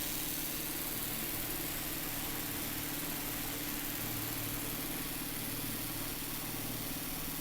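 1892 Crocker-Wheeler electric fan running steadily: an even motor hum under a rush of moving air.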